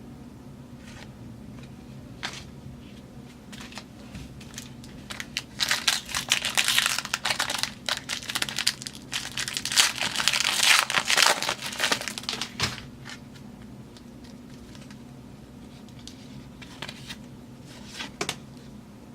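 A foil football card pack being torn open and its wrapper crinkled, a dense crackling from about five seconds in until about twelve seconds. Before and after, there are only a few light clicks and rustles over a low steady hum.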